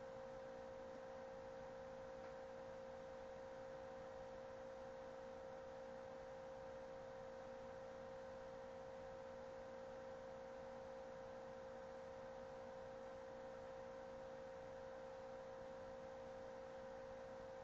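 Faint steady hum: a single tone with weaker, higher tones above it, unchanging throughout.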